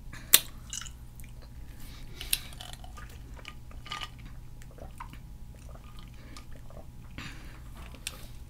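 Scattered small clicks and knocks of tableware and a plastic drinking tumbler being handled, with a sip through a straw midway. A sharp knock just after the start is the loudest.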